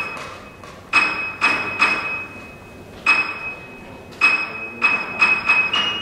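Hammer blows on metal, each ringing on with the same high tone. There are about nine strikes: three around the first two seconds, one near the middle, then a quicker run of five near the end.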